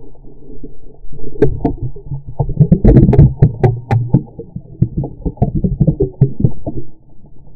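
Muffled underwater rumble of water moving around a camera's waterproof housing as the diver swims, with many irregular clicks and knocks against the housing, fading near the end.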